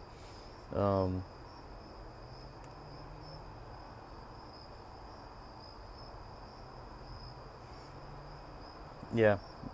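Crickets trilling steadily, a thin unbroken high tone in the background. A man's brief voiced murmur comes about a second in, and his speech starts again near the end.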